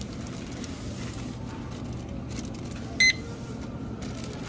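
Steady hum of a grocery store's refrigerated produce shelves, with one short, loud electronic beep about three seconds in.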